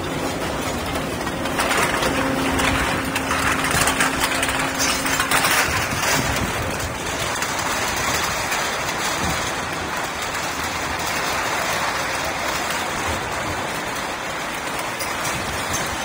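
Aluminum can baling line running: the belt conveyor and hydraulic drive give a steady mechanical noise, with the rattle and clatter of scrap aluminum cans riding up the conveyor. A low hum sits under it for the first five seconds or so.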